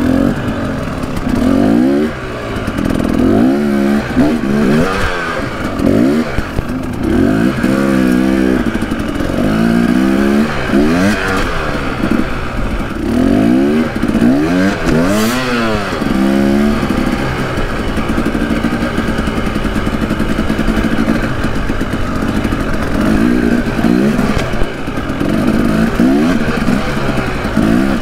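Husqvarna dirt bike's single-cylinder engine revving up and down over and over in short throttle bursts. About two-thirds of the way through it settles into a steadier run.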